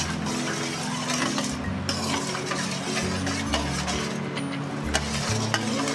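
A steel ladle stirring and scraping around a steel kadai of watery mustard-seed and green-chilli tempering, with frequent metal clicks and light sizzling, over background music.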